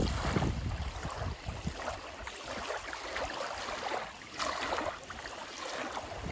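Small waves lapping at a lakeshore, swelling and falling every second or so, with a light breeze. Wind buffets the microphone briefly at the start.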